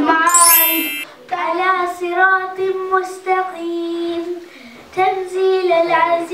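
A child's voice chanting in long, held melodic notes, with short breaks about a second in and about four and a half seconds in.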